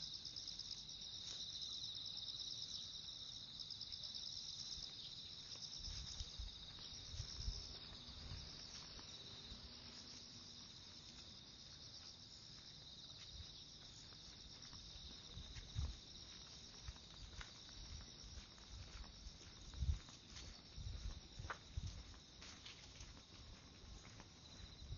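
High-pitched chorus of insects chirring steadily, pulsing during the first few seconds. Soft, low thuds of footsteps and clothing rustle come and go from about six seconds in.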